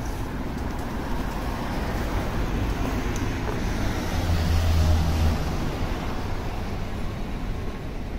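Steady city street traffic noise, with a motor vehicle's engine hum growing louder as it passes close, loudest about five seconds in, then fading.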